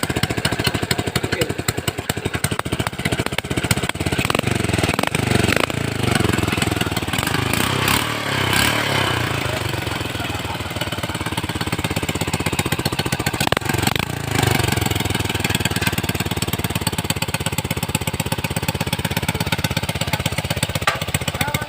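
Motorcycle engine driving a homemade corn planter-cultivator, running continuously with a rapid, even pulsing beat; the engine speed eases off somewhat in the middle and picks up again.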